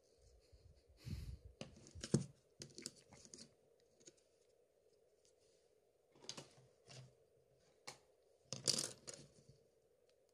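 Hands handling the parts of an opened Samsung Galaxy S3 smartphone: faint small clicks and scrapes of plastic and metal as connectors and parts are pressed into place. They come in clusters, about a second in, again around six seconds, and loudest near nine seconds.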